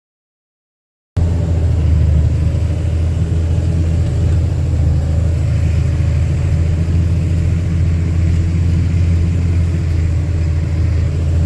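Dead silence for about the first second, then a tractor's diesel engine running with a steady low drone.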